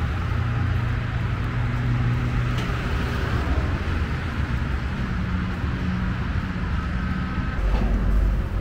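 Steady low rumble of road traffic and vehicle engines.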